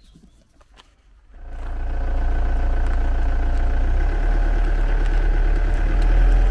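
Ford Transit van's engine running as the van pulls away, heard loud and close from beside the van, coming in about a second in with a strong deep hum.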